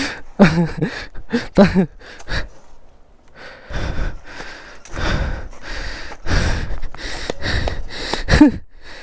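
A rider's breathless gasps and short wordless exclamations: two in the first two seconds and one near the end. A rough rushing noise fills the gap between them.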